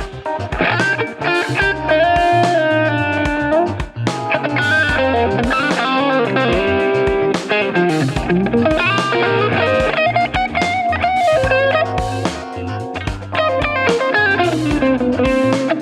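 Electric guitar with Wilkinson high-output ceramic pickups played as a tone test: a melodic lead line of held notes, several of them bent or sliding in pitch.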